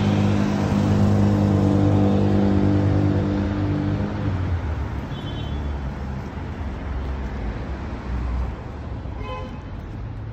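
Road traffic on a residential street: a motor vehicle's engine holds one steady note for the first four seconds or so, then gives way to a general rush of passing traffic.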